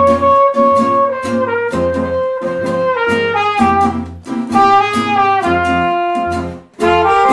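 Small acoustic jazz combo playing a slow tune: a brass horn carries the melody in long held notes over acoustic guitar chords and plucked double bass. The music dips briefly near the end before coming back in.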